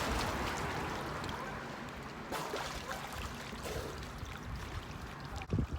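Lake water splashing and trickling, easing off, with a few low knocks near the end.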